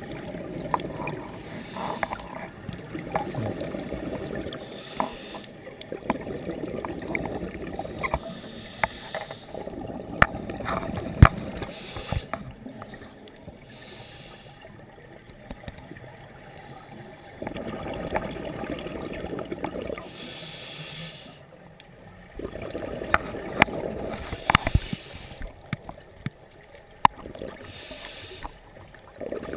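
Scuba diver breathing through a regulator, heard underwater through a GoPro Hero2 housing: long spells of gurgling exhaled bubbles with quieter pauses between, and scattered sharp clicks.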